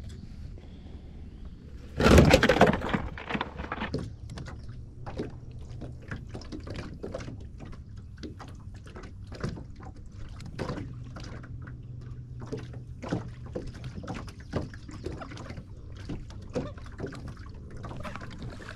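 Handling noises in a small aluminium fishing boat: a loud clattering burst about two seconds in, then scattered light knocks and taps, over the low hum of an electric trolling motor that comes and goes.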